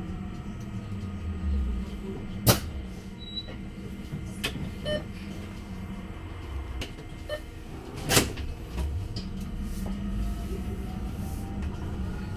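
Interior of a Heuliez GX337 E battery-electric bus: the electric drive's whine falls as the bus slows, then rises again near the end as it pulls away, over a steady low hum. Two sharp knocks, the loudest sounds here, come about two and a half and eight seconds in.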